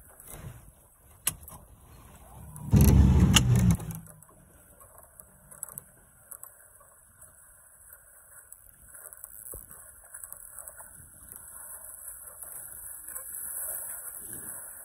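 Wind and water noise from a small boat on choppy sea, with one short, loud blast of wind on the microphone about three seconds in. The rushing water grows a little louder near the end.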